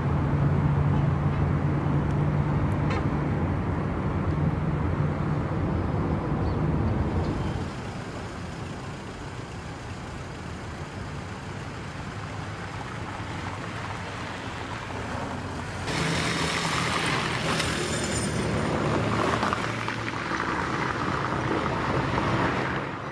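City street traffic: vehicle engines running and cars passing, with a steady low engine hum at first, quieter through the middle, and louder again for the last seven seconds or so.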